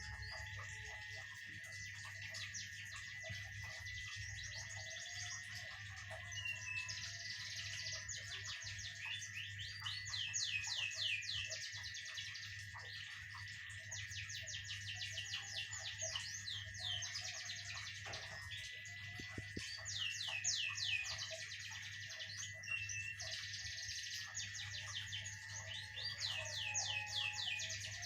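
A kept songbird singing in long phrases of rapid, repeated high notes, each phrase lasting a few seconds with short breaks between, over a steady high-pitched tone.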